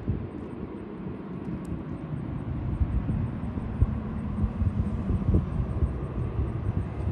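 Boeing 757-200 jet engines rumbling low and steady as the airliner comes in to land, growing louder about three seconds in, with wind buffeting the microphone.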